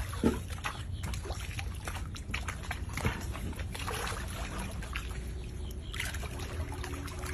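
Shallow pool water sloshing and trickling around an American alligator as it moves in for food, with a sharp hit about a quarter second in and another about three seconds in, over a steady low hum.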